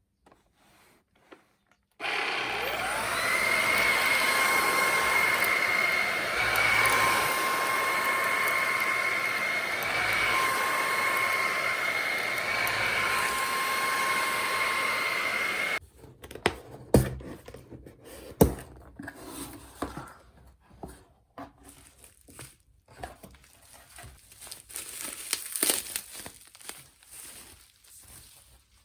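Cordless stick vacuum switched on and running steadily with a high whine for about fourteen seconds, then cut off abruptly. Scattered clicks, knocks and light rustling follow.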